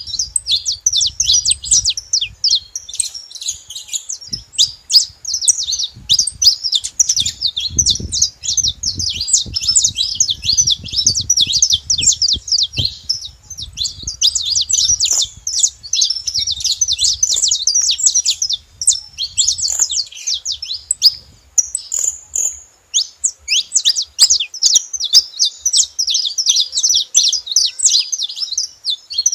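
Saffron finch singing: a long, fast run of high chirps and trills with a short pause about three-quarters through.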